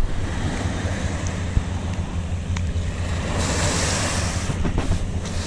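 Small waves washing up on a sandy beach over a steady low rumble. The wash swells into a louder hiss about three and a half seconds in and again near the end.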